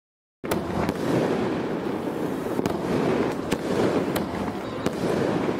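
Fireworks going off: a sudden start about half a second in, then a continuous dense crackle with sharp pops scattered through it.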